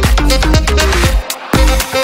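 Background electronic dance music with a steady, driving beat.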